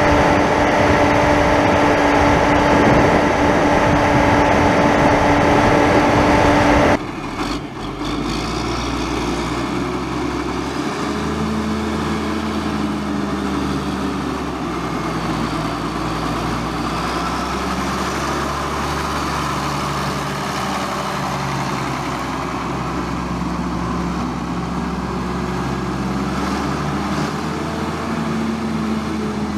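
Ford TW25 tractor's diesel engine running steadily at road speed, heard close to the bonnet. About seven seconds in it cuts to a quieter, more distant Ford tractor diesel engine running, its pitch rising and falling a little.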